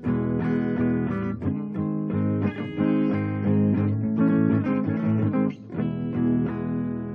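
Guitar played through a transistor circuit under test with a swapped-in transistor: a run of plucked notes and chords, with a brief drop in level a little before the end.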